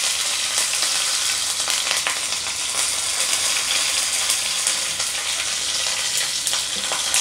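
Curry leaves sizzling in hot coconut oil with popped mustard seeds in a kadai, a steady sizzle with scattered small crackles: the tempering for a curry.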